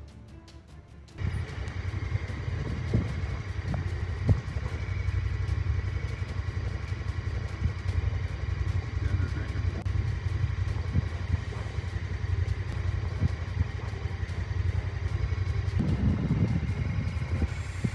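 Side-by-side UTV driving along a dirt trail: a steady low engine and ride rumble with a few sharp knocks, starting abruptly about a second in.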